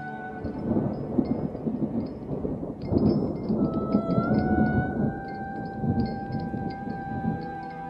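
A deep, crackling rumble swells in, is loudest around the middle and dies away near the end, over soft sustained music tones.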